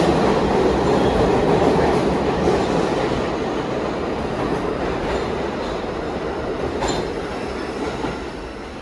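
R46 subway train pulling out of the station, its wheels running over the rails, the sound fading steadily as the train moves away.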